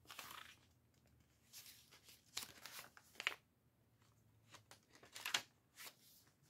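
Paper pages of a handmade junk journal being turned by hand: faint, short rustles and flutters of thick paper, several times over.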